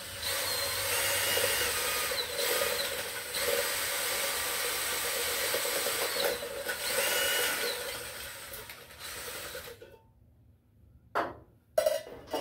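Cordless drill running, spinning a spray paint can mounted on a bolt shaft to mix the paint; the motor's whine slides up and down in pitch twice as the speed changes, then dies away and stops. Two short knocks follow near the end.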